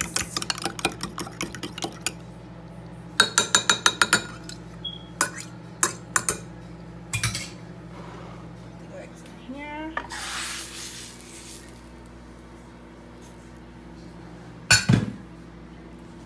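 Fork whisking beaten eggs in a glass measuring cup: rapid clinks of metal on glass in quick runs, then a few scattered clinks. A short hiss about ten seconds in and one loud knock near the end.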